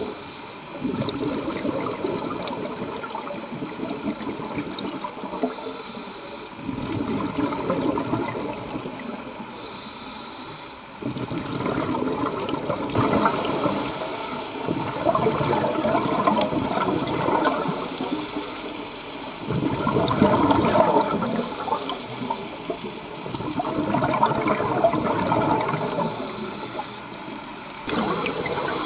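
Scuba diver breathing through a regulator underwater: a short hiss on each inhale, then a longer rush of bubbling on each exhale, repeating about every five seconds.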